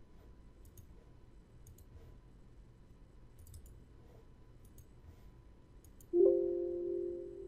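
Light mouse clicks, then about six seconds in a Windows alert chime sounds and fades over about a second and a half, the system's warning that the file being saved already exists.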